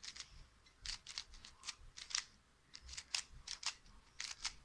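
Qiyi plastic speed cube being turned by hand: quick, irregular clicks of the layers snapping round, in small clusters of two or three.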